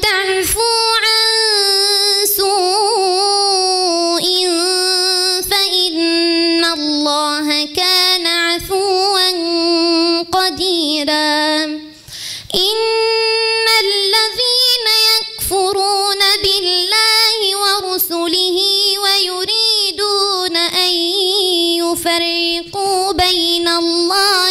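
Solo Quran recitation by a female reciter in melodic tajweed style: one high voice drawn out in long, ornamented phrases, pausing briefly for breath about halfway through.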